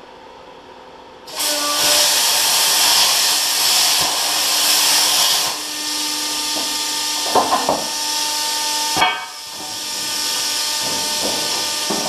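Plasma cutter cutting steel: a loud rushing hiss starts suddenly about a second in, with a steady whine under it. It breaks off with a pop about nine seconds in and starts again a moment later.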